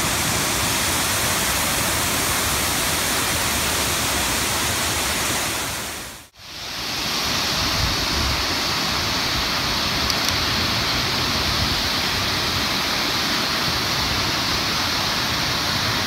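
Waterfall rushing: a steady noise of falling water. It fades out briefly about six seconds in and comes back with a brighter hiss.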